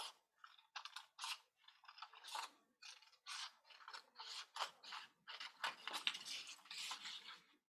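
Scissors cutting patterned craft paper along a traced line: a quick run of short crisp snips, about two to three a second, stopping near the end.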